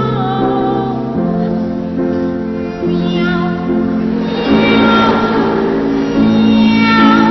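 Music: a sung song about cats meowing, with a high voice or voices over sustained backing chords that change about once a second, including meow-like sung notes.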